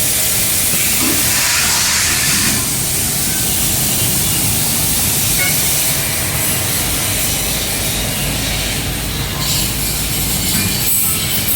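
Industrial laser cutting machine running, a loud steady hiss over a low rumble.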